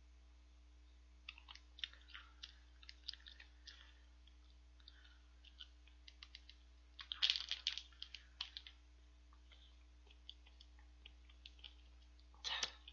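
Faint scattered small clicks and smacks, with a louder short rustling burst about seven seconds in and another just before the end.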